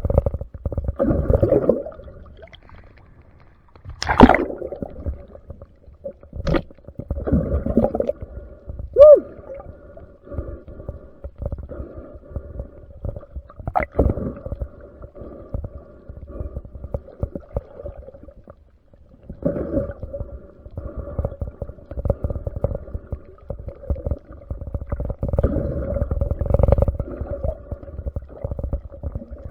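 Underwater sound on a diving camera's microphone: low rumbling water noise and bubbling over a steady hum, broken by a few sharp clicks and a short squeak about nine seconds in.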